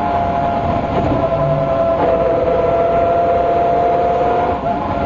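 MCW Metrobus with a Gardner diesel engine on the move, its differential whining prominently over the engine noise. The whine holds steady and shifts slightly about two seconds in and again near the end.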